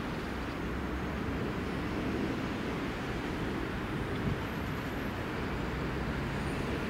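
A DB Regio diesel railcar approaching slowly from a distance, heard as a steady low rumble.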